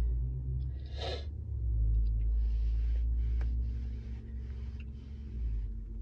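A man breathing heavily through his nose and mouth while holding back tears. A sharp sniff-like inhale comes about a second in, then a run of slower breaths, all over a steady low rumble.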